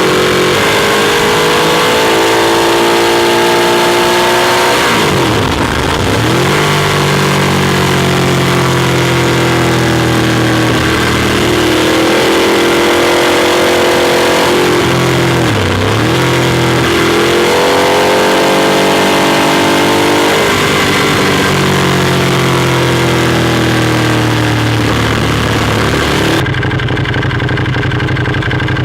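Ducati Monster 821's Testastretta V-twin under way, heard from onboard, its note climbing and falling with the throttle, with the pitch dropping sharply and climbing again twice. A steady rush of wind noise runs over the engine and stops suddenly near the end, leaving a steadier engine note.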